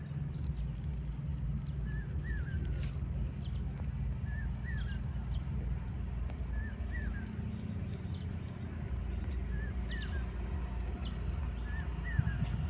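A bird repeating a short two-note call, a small note then a sharper rising-and-falling one, about every two seconds, five or six times, over a steady high-pitched buzz and a low rumble.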